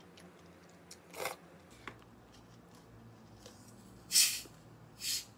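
A plastic Coca-Cola bottle being twisted open: a loud hiss of escaping carbonation near the end, then a second shorter hiss as the cap comes off. About a second in there is a brief noisy burst, a slurp of noodles.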